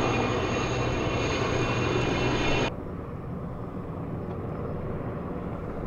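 Firefighting aircraft passing low overhead: a loud, steady engine drone that cuts off abruptly a little over two and a half seconds in, leaving quieter street traffic.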